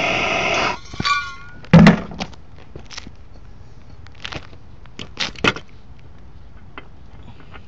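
Gas torch flame hissing steadily, cut off under a second in, followed by a brief squeak. A loud metal knock about two seconds in is the loudest sound, then scattered lighter knocks and clinks as the old bushing sleeve is handled on the pavement.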